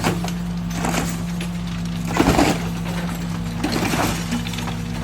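A heavy machine's engine running steadily while a house is torn down, with three or four crashes of breaking glass and wood, the loudest a little over two seconds in.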